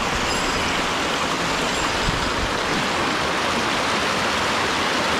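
Mountain stream rushing steadily over a small rocky cascade close by.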